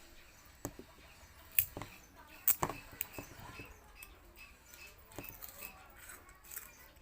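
Sugarcane being bitten and chewed: irregular crunching and cracking clicks, the loudest about a second and a half in and again near two and a half seconds.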